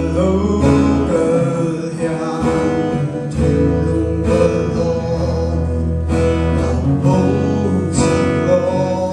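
A young man singing a slow melody into a microphone, accompanied by a strummed acoustic guitar.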